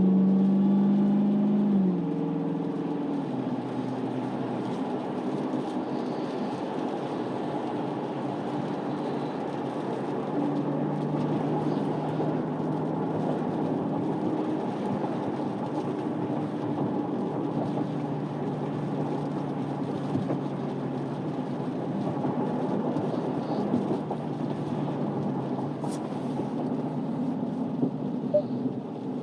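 Dodge Challenger Hellcat Redeye's supercharged V8 under power, easing off about two seconds in, then a steady low drone with road noise as the car cruises.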